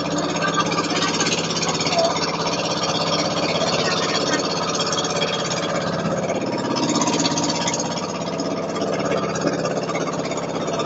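Motorboat engine running at a steady pitch, over the hiss of water rushing past the hull.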